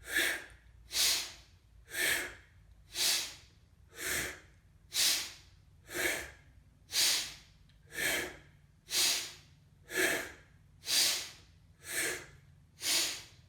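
A person doing rhythmic pranayama breathing for a kundalini yoga kriya: one strong, airy breath about every second, about fourteen in a row at an even pace.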